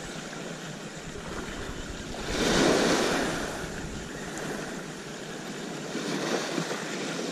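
Small waves washing up onto a pebble beach, with one louder wash about two seconds in.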